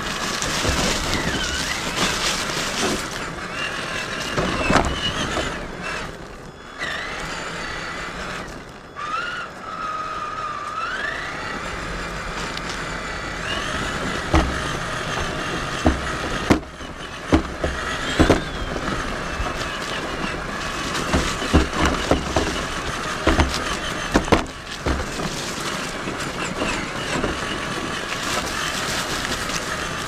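Traxxas Summit RC truck driving over creek-bed gravel and rocks: its electric motor and gearbox whine, rising and falling in pitch with the throttle, over a steady crunching of tyres on stones. Sharp knocks come repeatedly in the second half as the truck bumps over rocks.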